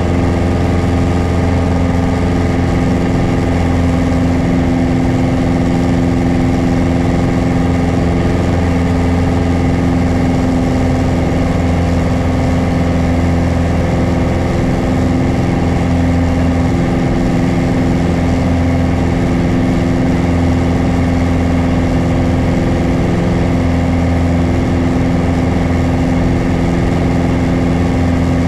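Piper PA-28 Warrior's four-cylinder Lycoming engine and propeller running steadily at a constant pitch in flight, heard from inside the cockpit.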